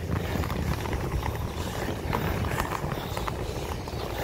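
Inline skate wheels rolling over brick pavers: a steady low rumble with frequent small clicks as the wheels run across the joints between the bricks.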